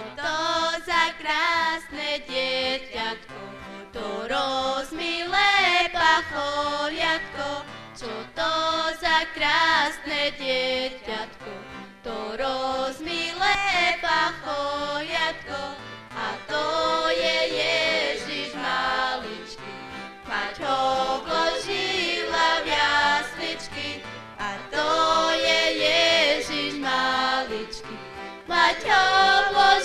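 Young voices singing a Christmas song in phrases, accompanied by acoustic guitar.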